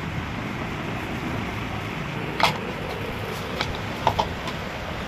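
Sharp clicks and light knocks from ceiling fan parts being handled during reassembly: one sharper click about two and a half seconds in, then a few lighter ones including a quick pair near four seconds, over a steady background hum.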